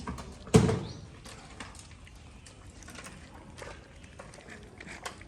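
A single loud thump about half a second in, followed by scattered faint clicks and rustles.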